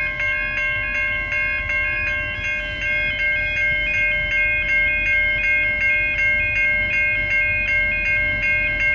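Level crossing warning bells ringing in a steady rhythm of about two and a half strokes a second, over the low rumble of an approaching diesel locomotive.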